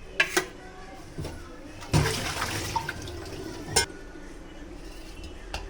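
Water pouring or splashing into a vessel for about two seconds, with sharp knocks of a utensil or vessel shortly before and just after.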